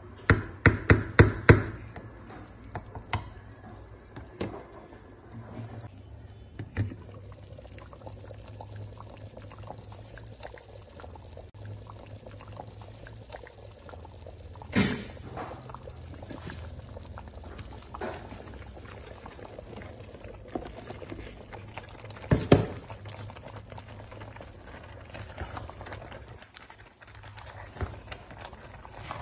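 Pot of oha soup bubbling on the stove under a steady low hum. A quick run of about six knocks sounds at the start, and there are scattered single knocks, the loudest about 15 and 22 seconds in.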